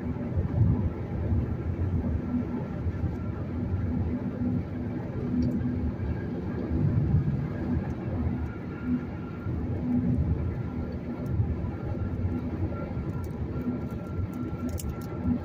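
Steady low rumble of tyre and road noise heard inside a car cruising at highway speed on concrete pavement, with a faint steady whine above it.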